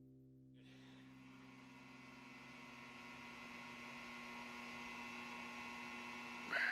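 Faint steady hum with a light hiss, and a short sharp sound near the end.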